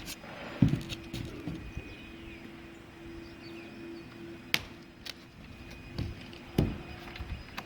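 A few separate knocks and thumps of work on a tar-papered shed roof deck: heavy thumps about half a second in and again near the end, and a sharp crack in the middle. A faint steady hum runs under the first half.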